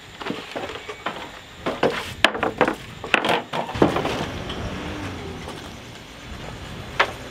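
Wooden boards knocking and clattering as a plywood bunk board and a timber bed frame are moved and handled: a quick run of knocks in the first half, then light shuffling and one sharp tap near the end.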